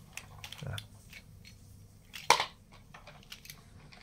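Plastic toy excavator and toy dump trailer being handled on a tile floor: scattered light clicks and knocks of plastic, with one louder knock a little over two seconds in.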